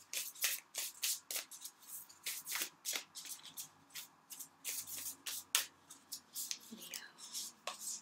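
Oracle card deck shuffled by hand, the cards flicking and slapping against each other in quick, irregular snaps several times a second.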